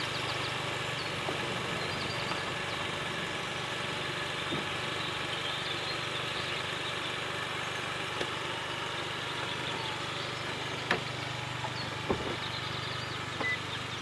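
Opel Cascada's powered fabric roof folding open: a steady motor hum, with a couple of sharper clunks from the mechanism near the end.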